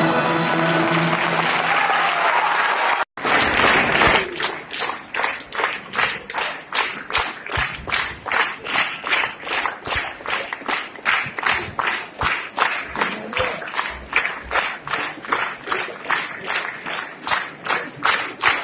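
Orchestral music for the first three seconds, broken off abruptly. Then a theatre audience claps in unison in a steady rhythm, about two and a half claps a second.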